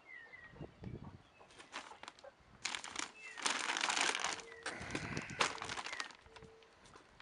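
Cracked corn being scooped and poured into a container on a scale: a rustling rush of grain for a couple of seconds midway, with scattered knocks of the scoop. Short falling bird chirps sound now and then.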